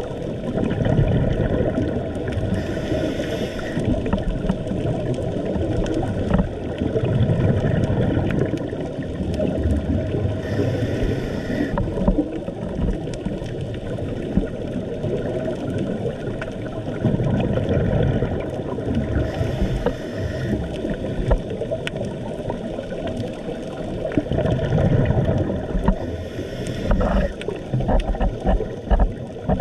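Underwater noise of a scuba dive: a steady low rumble of water moving past the camera, broken about four times by a second-long gush of a diver's regulator exhaling bubbles, one every seven or eight seconds.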